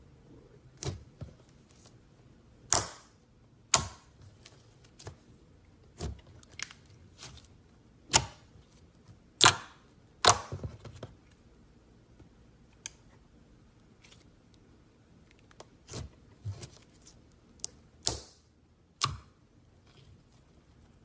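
Clear slime being squeezed and pressed by hand, giving irregular sharp pops and clicks with short pauses between them.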